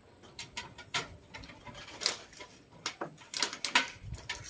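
Irregular sharp clicks and taps of spandrel soffit panels being fitted and fastened at the eave, with a quick cluster of louder knocks about three and a half seconds in.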